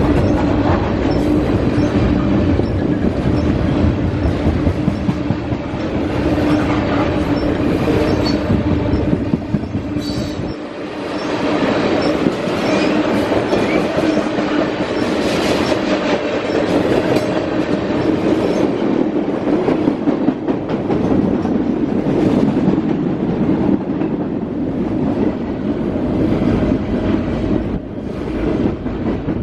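A CSX freight train's tank cars and high-sided freight cars rolling steadily past, with the wheels clicking over the rail joints and a steady drone running under the noise.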